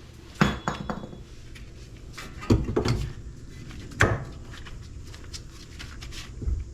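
Metal parts and tools being handled during front hub replacement work: about five separate clanks and knocks, one with a short metallic ring.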